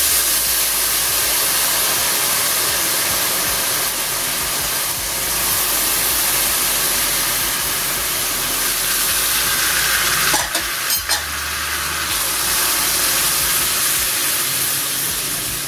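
Milk poured into a hot wok of sugar-coated fried vermicelli, sizzling and hissing steadily as it hits the pan. There are two short clicks about ten seconds in, and the mixture is being stirred near the end.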